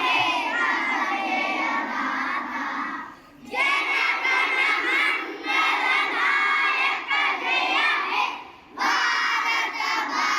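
A group of first-grade schoolchildren singing together in unison, in sung phrases with short pauses for breath about three and eight seconds in.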